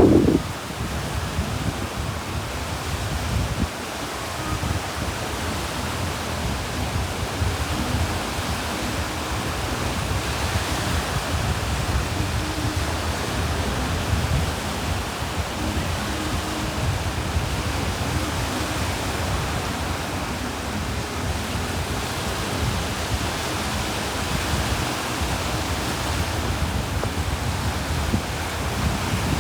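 Sea waves washing ashore as a steady rush of surf, swelling slightly about a third of the way in.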